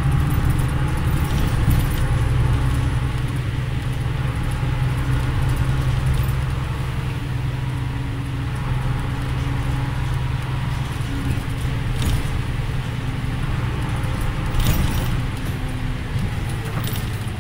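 Inside a 2010 Mercedes-Benz Conecto LF city bus under way: its OM926LA inline-six diesel and ZF 6HP502 automatic gearbox drone steadily, with a few short rattles from the bus's fittings.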